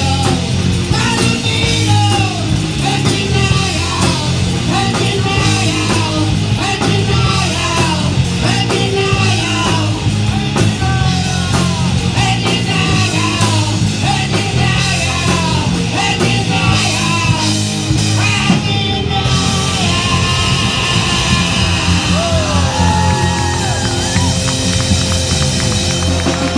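Live rock band playing loud: electric guitar, drum kit and keyboard, with a singer on the microphone through a small PA.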